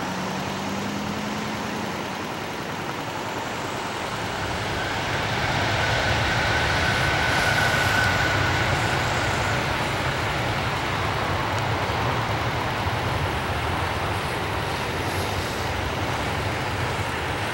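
Boeing 737-800's twin CFM56 turbofans at takeoff thrust during the takeoff roll: a steady jet roar that swells from about four seconds in, with a fan whine in the middle, then eases slightly as the jet rolls away.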